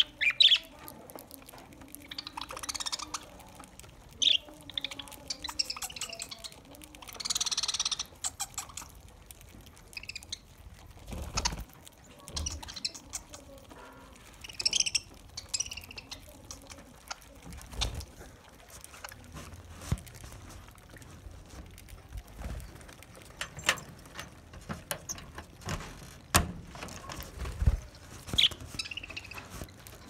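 A flock of budgerigars chirping and squawking in short, scattered calls while feeding, with a few sharp low knocks now and then.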